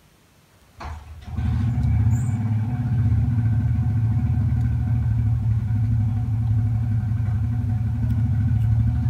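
A motor vehicle engine running steadily, a low hum with fast, even pulsing, starting about a second in.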